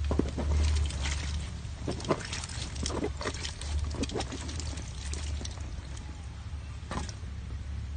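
Shallow water splashing and trickling in a tarp-lined crayfish tank. There is a quick run of sharp splashes through the first six seconds and one more near the end, over a steady low hum.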